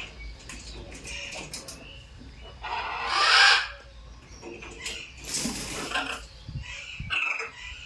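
Macaws squawking and chattering, with short calls throughout and a loud, harsh screech about three seconds in, then another about five seconds in.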